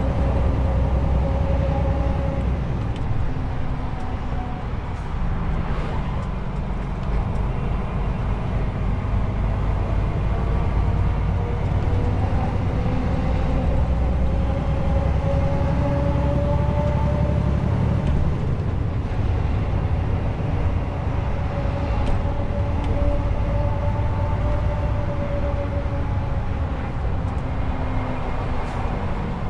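Heavy truck's diesel engine running while driving: a steady low rumble with a whine over it that slowly rises and falls in pitch as the speed changes.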